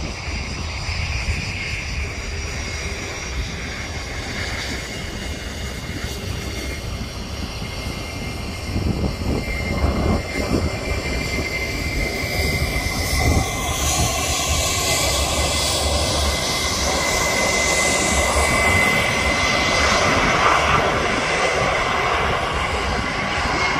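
Jet airliner's engines running, a steady roar with a high steady tone, growing louder over the second half as the plane passes close.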